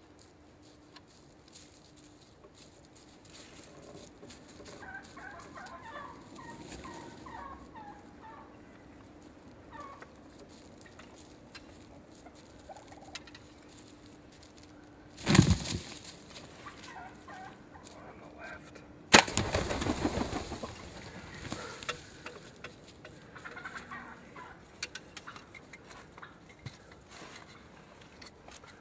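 Wild turkey gobblers at close range: soft, scattered short calls, then two loud gobbles about four seconds apart past the middle, the second trailing off over a couple of seconds.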